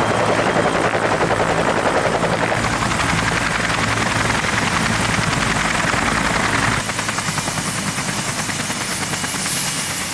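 Bell UH-1J Huey helicopter hovering low, its two-bladed main rotor chopping in a fast, steady beat. About seven seconds in the sound cuts to a quieter rotor chop from helicopters sitting on the ground with rotors turning.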